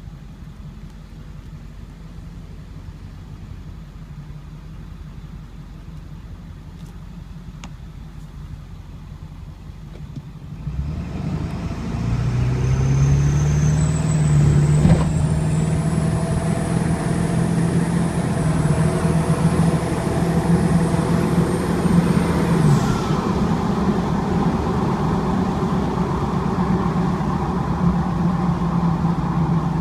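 2002 Ford 7.3 Power Stroke turbodiesel V8 running: a low rumble that gets much louder about ten seconds in. Shortly after, a thin, high-pitched squeal comes in over the engine, rises slightly in pitch and stops abruptly about twenty-three seconds in, while the engine keeps running. This squeal shows only under specific conditions.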